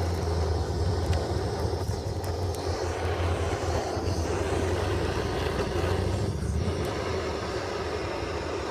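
Handheld blowtorch flame burning steadily: a continuous, even rushing noise with no breaks.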